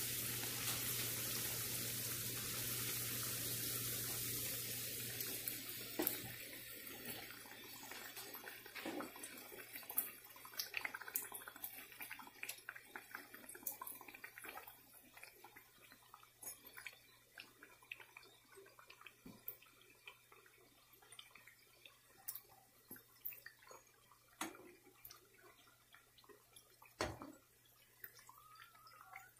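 Samosas deep-frying in hot oil: a steady sizzle for the first five seconds or so, then dying down to faint scattered crackles and pops.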